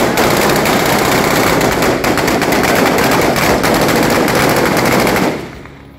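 Sustained rapid automatic gunfire: a dense, loud string of overlapping shots that dies away about five seconds in.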